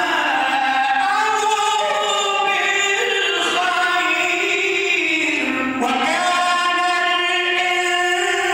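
A man reciting the Quran in the melodic chanted style (tajweed), his voice drawing out long held notes that slowly rise and fall, with a short break about six seconds in.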